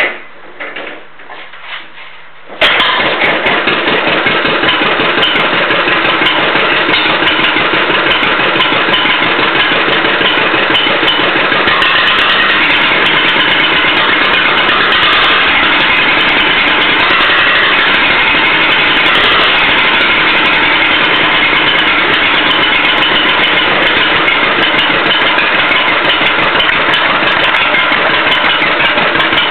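John Deere LUC two-cylinder engine catching about two and a half seconds in, after a few small knocks, then running steadily and loud with no muffler on its exhaust.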